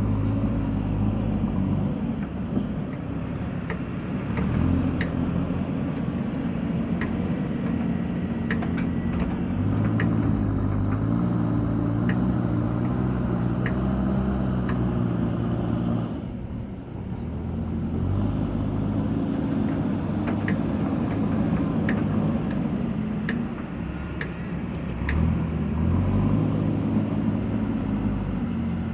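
Diesel engine of an earth-moving machine working, its note rising and falling with load, with scattered light clicks and knocks. It eases off briefly about halfway through.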